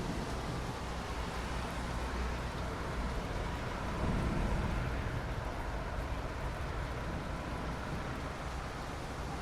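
Steady rain: an even hiss with a low rumble beneath it, swelling briefly about four seconds in.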